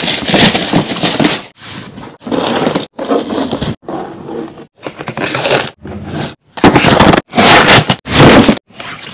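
Protective paper and masking tape being peeled and torn off a painted plastic toy scooter body: a string of short, loud crinkling and ripping bursts, each cut off abruptly.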